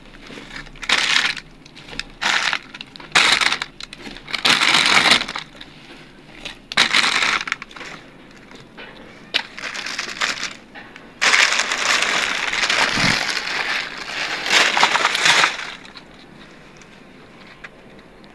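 Plastic sheeting crinkling and rustling in irregular bursts as it is handled, with one longer stretch of rustling about eleven seconds in; the rustling dies down near the end.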